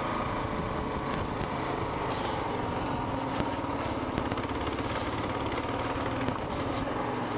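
Kawasaki KLR650's single-cylinder four-stroke engine running at a steady pitch as the motorcycle rides up a rocky trail, with scattered small clicks through it.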